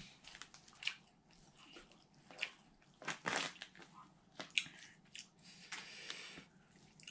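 Mouth noises of a person eating rice and pork curry by hand: chewing and lip smacks with fingers working the food on the plate, heard as an irregular scatter of short clicks and smacks.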